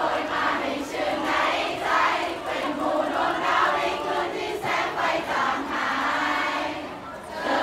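Crowd of fans' voices calling out and cheering together, many voices overlapping, with a brief lull near the end.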